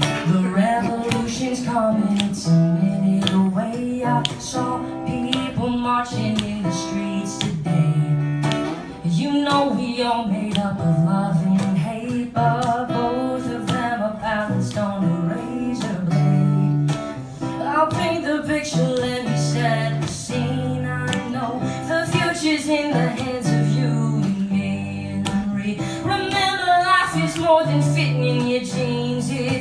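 Acoustic guitar played live, with a man singing over it.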